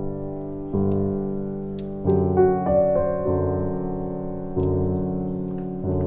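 Background piano music: slow, sustained chords that change every second or so.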